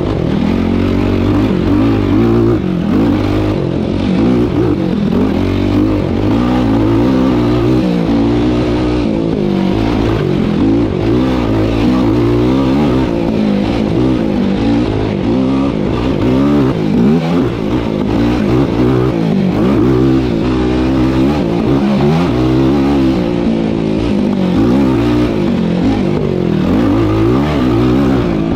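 Yamaha YFZ450R SE sport ATV's single-cylinder four-stroke engine being ridden hard, its pitch rising and falling over and over as the throttle is opened and closed.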